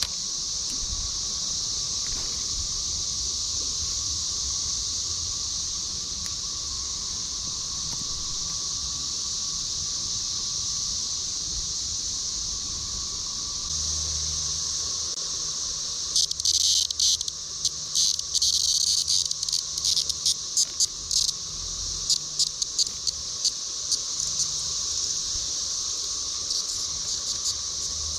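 Cicadas droning steadily, a continuous high buzz. From about a third of the way in, a closer buzz comes in loud, rapid, stuttering bursts for several seconds.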